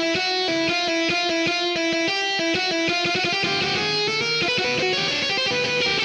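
GarageBand's virtual electric guitar on the Hard Rock preset, with overdrive and flanger effects, playing a fast run of repeated picked notes. About halfway through, the notes blur into a rising slide before the quick repeated riff returns.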